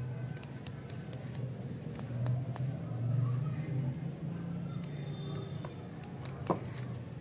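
Light scattered clicks and crinkles of a wrapped lollipop being turned in the fingers, with one sharper click near the end, over a steady low rumble.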